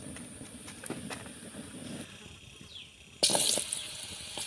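A metal fork clicks and scrapes lightly on a foil plate as chopped food is mixed. About three seconds in, a much louder steady hiss starts suddenly: oil sizzling in an iron kadhai over a wood fire.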